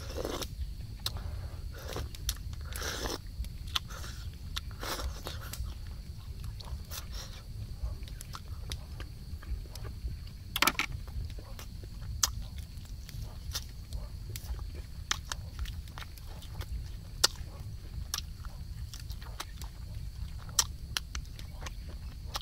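A person eating soup: slurping broth from a spoon a few times in the first five seconds, then chewing, with scattered wet mouth clicks and a few sharper smacks. A steady low rumble and a faint high tone run underneath.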